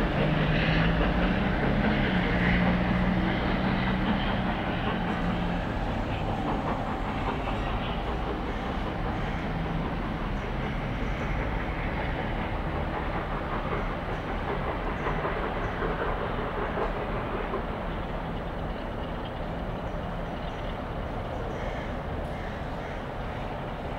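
Steam locomotive 7029 Clun Castle, a Great Western four-cylinder Castle class 4-6-0, working a passenger train away, with the rumble of the engine and rolling coaches fading steadily as the train recedes. A steady low drone is heard for the first few seconds.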